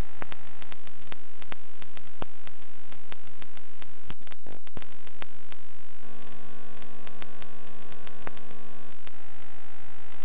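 Electrical hum and static from the recording line, with a steady high whine and scattered small clicks; the hum turns buzzier from about six to nine seconds in. No programme sound.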